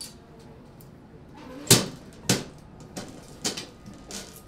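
Metal apartment mailbox being worked: clunks and clicks of its small hinged door and lock, the loudest a hard clunk a little under two seconds in, a second about half a second later, then several lighter clicks.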